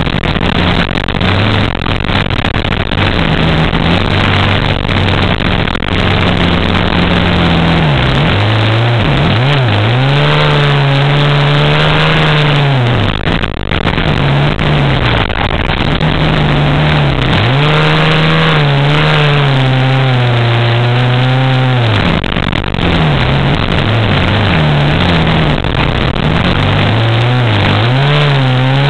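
Off-road bike engine running under load while riding over sand dunes, revving up and easing off several times, with the longest climbs in pitch about a third and two thirds of the way through. Wind rushes steadily over the microphone underneath.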